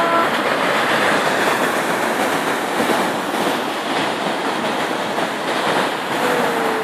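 The Severn bore, a tidal wave running up the river, breaking and surging over the mud and stones of the bank: a loud, steady rush of churning water.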